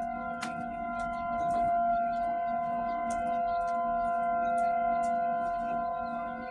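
Outdoor tornado warning siren sounding its steady alert: several held pitches together in a constant chord, the level swelling and easing gently. Brief high chirps are scattered throughout.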